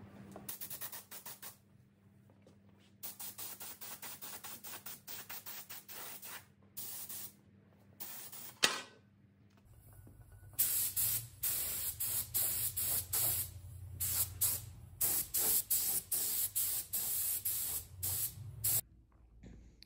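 Compressed-air paint spray gun hissing in many short bursts as the trigger is pulled again and again, spraying paint onto metal covers. A single sharp click sounds about nine seconds in.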